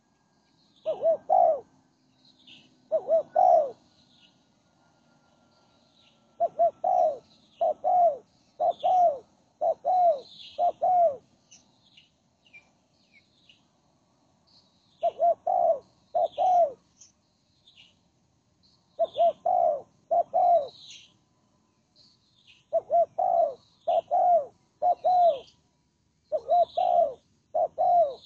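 Spotted dove (tekukur) cooing: low, repeated coo notes in phrases of two to five, with pauses of a few seconds between phrases. Small birds chirp faintly and high-pitched throughout.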